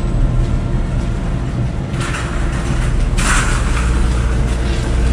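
Wire-frame laundry cart rolling across a hard floor with someone riding in it: a steady low rumble from its wheels, with a few short rattling bursts.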